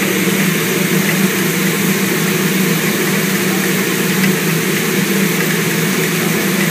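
Shaker test rig running, vibrating a car's wheel on its platform: a loud, steady hum with an even hiss over it.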